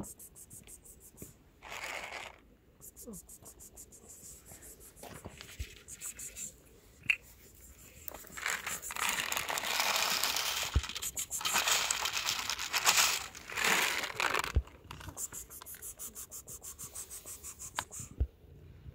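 Plastic packaging crinkling and rustling in several bursts, loudest through the middle, with a fast run of faint ticks near the start and again near the end.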